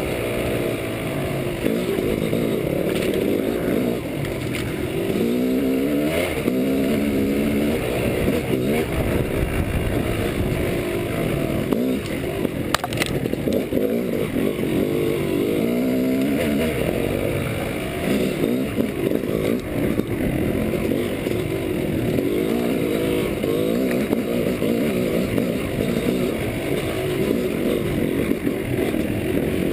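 Yamaha dirt bike engine, heard close from on the bike, revving up and falling back again and again as the rider works the throttle over rough trail. There is one sharp click about thirteen seconds in.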